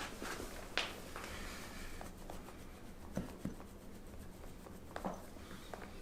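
Quiet rustling and handling noise with a few short sharp clicks, the loudest about a second in and two more near the middle and one near the end.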